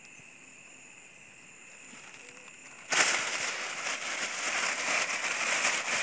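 Plastic bag crinkling and rustling loudly as it is handled, starting suddenly about three seconds in with a dense, irregular crackle.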